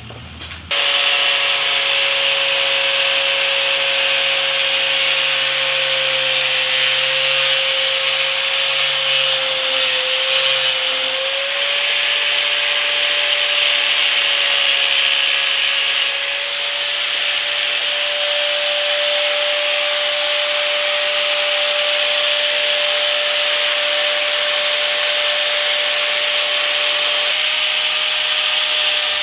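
Electric angle grinder starting about a second in and running steadily with a high whine, its cutting disc grinding through the hard black plastic of a motorbike rear fender.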